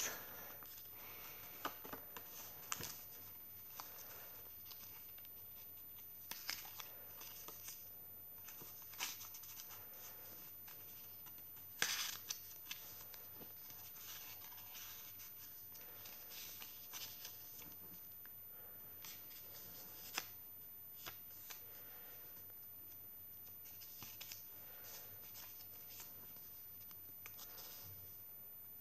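Paper pages and tucked-in paper pieces of a small, thick handmade junk journal being turned and handled: faint, scattered rustles and flicks, the loudest about twelve seconds in.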